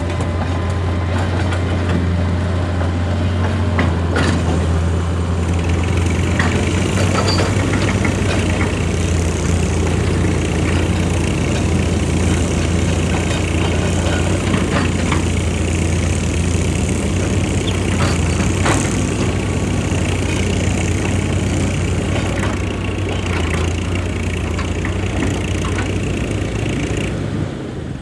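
Heavy diesel machinery running steadily, with scattered knocks and rattles over the engine hum; the level drops about a second before the end.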